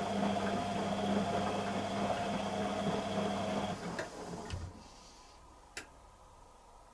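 Beko WTG620M1 washing machine's motor running with a steady whine and hum, then cutting off about four seconds in, followed by a few sharp clicks.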